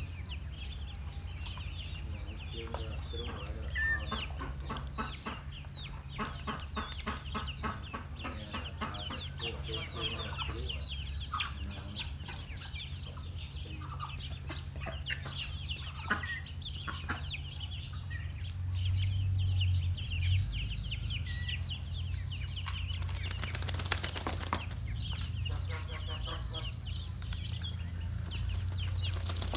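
Muscovy ducklings peeping without a break, many short high calls a second, with lower bird calls mixed in at times. A brief rushing noise stands out about three-quarters of the way through.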